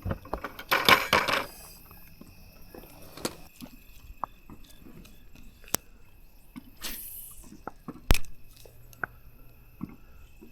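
Scattered small clicks and knocks, with a brief rustling burst about a second in and one sharp knock about eight seconds in.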